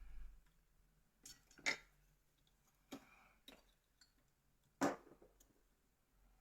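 Scattered sharp clicks and light taps of small plastic and metal phone parts being handled during a Nokia N900 teardown, about seven in all, two of them louder than the rest.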